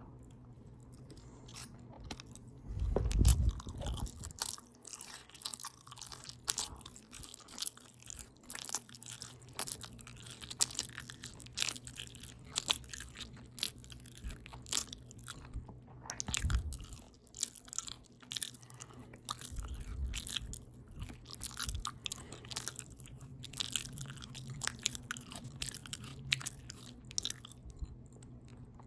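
Close-up open-mouth chewing of a potato taco bowl: steady wet smacking and clicking of lips and tongue, with a few low thuds, the loudest about three seconds in.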